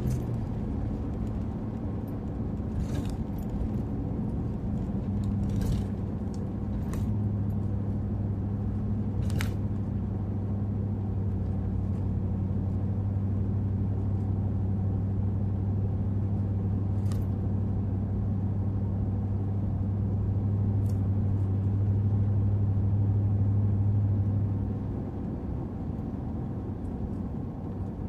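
Chevrolet Avalanche pickup's V8 engine and road noise heard from inside the cab while cruising: a steady low drone that eases off a few seconds before the end. A few faint clicks sound in the cabin.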